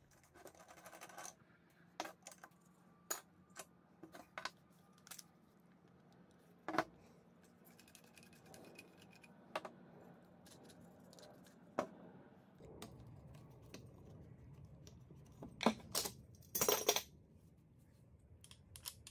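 Irregular metallic clicks and clinks as a cordless angle grinder's guard, side handle and parts are handled and set down on a wooden table, with a quick cluster of louder clinks near the end.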